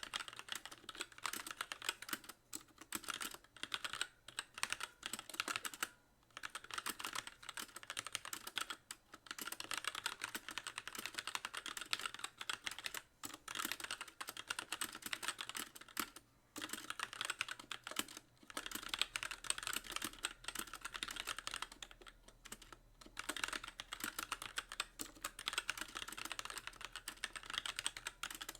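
Continuous typing on a Magicforce mechanical keyboard with very light Gateron Clear linear switches and stock keycaps, a dense run of key clacks with the keys bottoming out on each press. The typing stops briefly a few times before going on.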